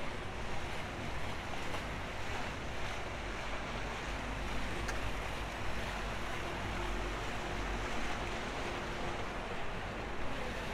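A boat's engine running steadily, with water washing.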